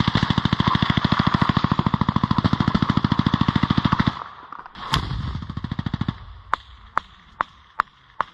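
Machine gun firing one long continuous burst that stops abruptly about four seconds in. It is followed by a single loud shot and then five quieter separate shots about half a second apart.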